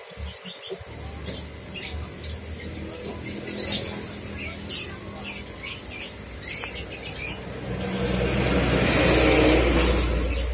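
Background noise around aquarium tanks: a low steady hum with scattered faint clicks and squeaks. A rush of noise swells up about eight seconds in and eases off near the end.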